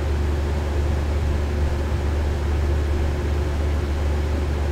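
Steady low hum with an even hiss over it, unchanging throughout: the constant background noise of the recording, with no other sound standing out.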